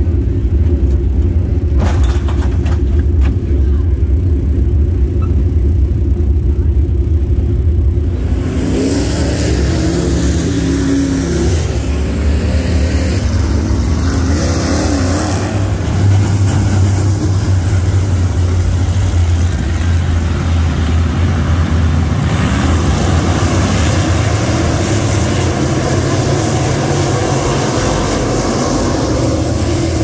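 Dirt late model race cars' engines running on the track, a steady low drone that turns fuller and brighter, with rising and falling engine pitch, about eight seconds in.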